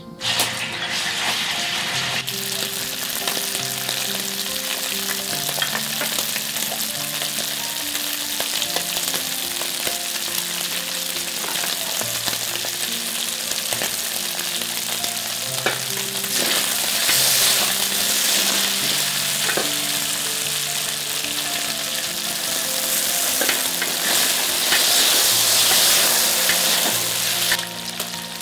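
Pork and red chilies stir-frying in hot oil in a wok: a steady, loud sizzle with spatula stirring, growing louder twice in the second half.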